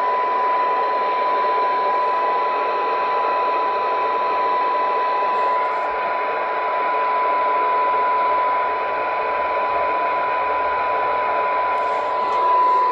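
Cobra 29 XLR CB receiver's external speaker at full volume, putting out a steady test tone half buried in loud receiver static: a weak signal at the set's sensitivity limit, about −116 dBm for 12 dB SINAD.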